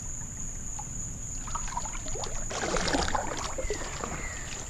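Canoe paddle strokes in the creek water beside a kayak: small splashes and drips, busiest about midway, over a low rumble.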